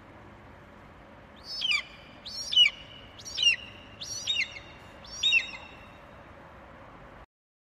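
Pterodactyl sound effect: about five short, shrill bird-like calls about a second apart, each falling in pitch, over a steady faint hiss. It cuts off suddenly near the end.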